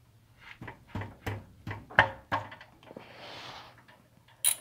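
A steel socket wrench and extension clinking and knocking against an MGB's oil pan drain plug as the socket is worked onto it, about six sharp metal knocks in the first two and a half seconds. A soft rustle follows, then a quick pair of sharp clicks near the end.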